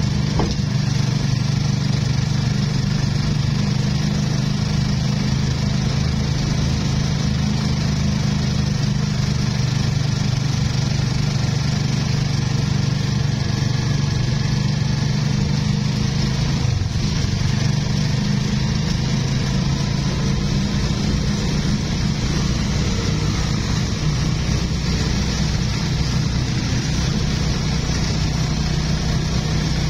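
Motorcycle engine of a sidecar tricycle running steadily under way, heard from inside the sidecar. About 17 s in the engine note dips briefly, then picks up again.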